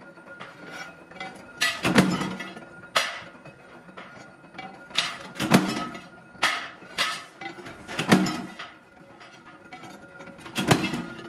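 Mechanical power press punching steel plates: four heavy clanking strokes a little under three seconds apart, with lighter metallic clinks of the steel plates being handled and stacked in between.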